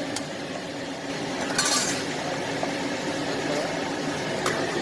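Pot of salmon, tomato and water-celery broth boiling on an electric stovetop, a steady bubbling hiss over a low steady hum, with a few brief clinks of a ladle against the pot.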